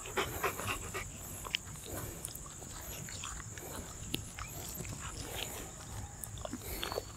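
Quiet mouth sounds from a Rottweiler as its lips and jaw are held open by hand: soft breathing with scattered small wet clicks and smacks of lips and tongue.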